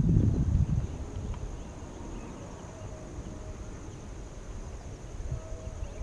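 Wind buffeting the microphone in a strong gust during the first second, then dying down to a light outdoor rush. A steady high insect buzz runs underneath throughout.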